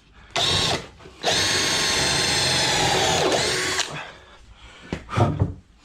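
Electric drill boring dowel holes in timber: a short burst, then a steady run of about two and a half seconds that slows near the end. A couple of knocks follow.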